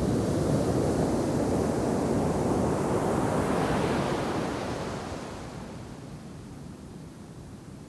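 Ocean surf at a beach with heavy shore break: a wave crashing and washing up the sand, then fading to a softer steady wash about halfway through.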